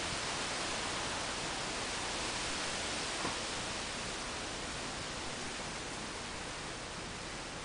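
Steady, even outdoor background hiss with no distinct source, and one faint click about three seconds in.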